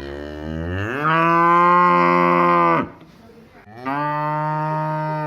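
Cow mooing twice: a long moo that rises in pitch over its first second and then holds for about two seconds, and a second moo about a second later that rises and holds the same way.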